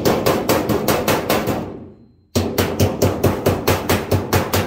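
Hammer tapping rapidly on a sheet-metal duct seam, about five or six light blows a second, beating down the flange of a Pittsburgh seam to lock a side piece in place. The tapping stops briefly about two seconds in, then starts again.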